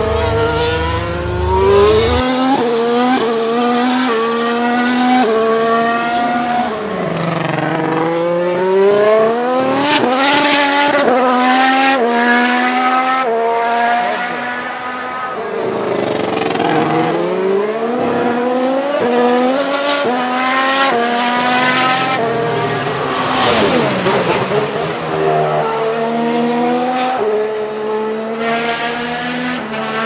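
High-revving racing engine climbing in pitch and shifting up again and again, with fast pass-bys about every eight seconds that swoop up and then down in pitch.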